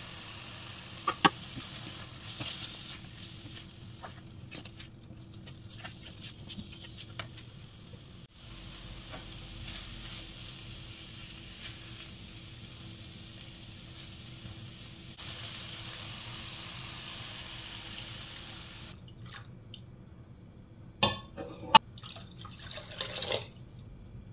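Chicken, red kidney beans and sweet corn sizzling in a frying pan while a spatula stirs them, with light scrapes and taps. Near the end there are a few louder knocks and splashes as stock is poured into the pan.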